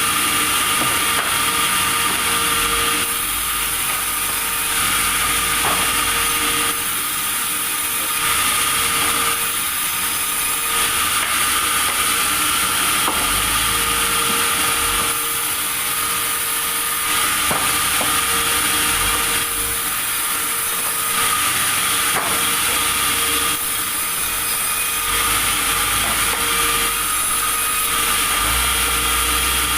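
Sawmill saw running and cutting timber: a loud, steady machine noise with a constant high whine, swelling and easing every two or three seconds as the blade works through the wood.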